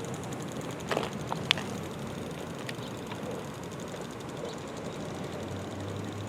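Steady outdoor background noise with no siren sounding, broken by a couple of short sharp clicks about a second in.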